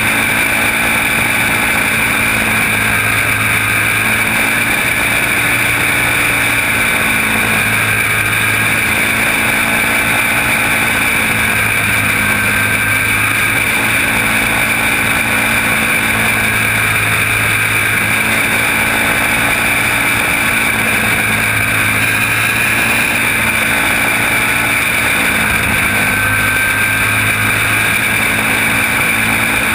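Racing kart engine running hard at race speed, heard on board from the driver's seat, loud and continuous.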